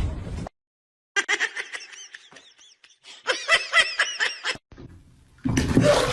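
High-pitched laughter in two runs of quick, rhythmic bursts.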